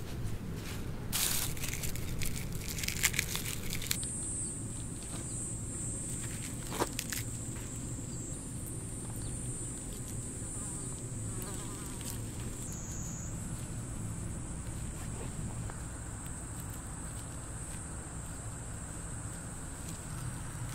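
Steady high-pitched chirring of insects in the field, setting in about four seconds in and holding on. Before it, gloved hands rustle and scrape in the soil and the bamboo basket of seed bulbs.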